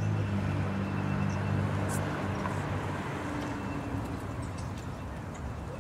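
Street traffic: a vehicle engine's steady low drone over the general noise of the road, fading away about three seconds in.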